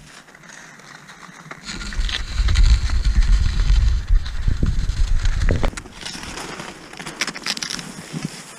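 Cross-country skis hissing along snow tracks, with wind buffeting the microphone from about two seconds in until nearly six seconds as the skier picks up speed; a few sharp clicks follow near the end.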